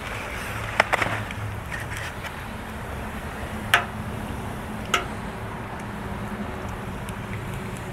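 Food sizzling steadily on a Blackstone gas griddle, with a pair of sharp clicks about a second in and two sharp taps near the middle as an egg is cracked open.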